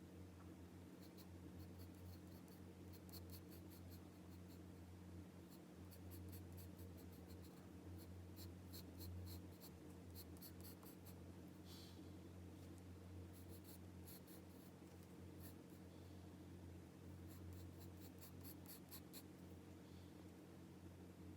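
Pencil drawing on paper: runs of short, quick scratching strokes that come and go, faint, over a steady low hum.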